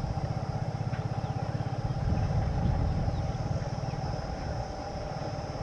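WAP-4 electric locomotive and its passenger coaches approaching: a low rumble with a steady hum over it.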